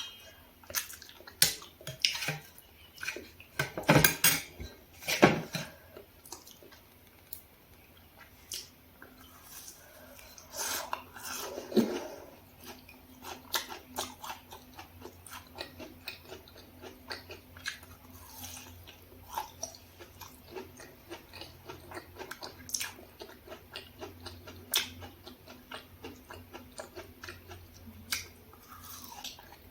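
A spoon clinking and scraping against a plate and bowls, with several sharp, loud clinks in the first few seconds, then quieter close-up chewing and small mouth and utensil clicks.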